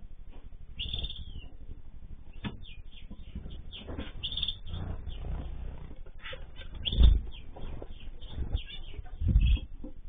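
Mixed aviary birds chirping and calling in short, high notes. Two dull low thumps about seven and nine seconds in are the loudest sounds.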